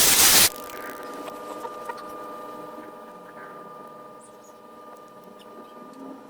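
Fuel injector test bench during calibration: a loud spraying hiss cuts off about half a second in, leaving the bench's steady hum with faint scattered ticks.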